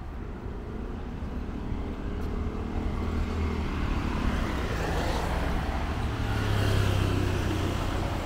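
Road traffic: a motor vehicle's engine hum growing louder as it draws near, loudest near the end.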